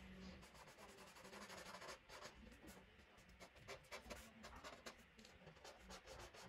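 Felt-tip marker drawn across paper in faint, short strokes, several a second, as stone blocks are shaded.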